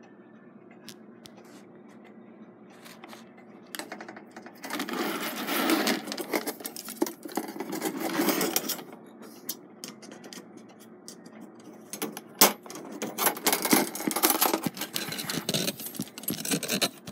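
Steel clock mainspring being worked off the great wheel arbor's hook with a screwdriver: irregular metallic scraping, clinking and rattling of the coils, starting about four seconds in, with a sharp metal click about twelve seconds in.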